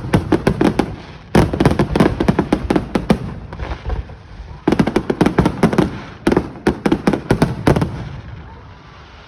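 Aerial fireworks going off in rapid volleys of sharp bangs and crackles, in four dense bursts. They die away to a fading rumble near the end.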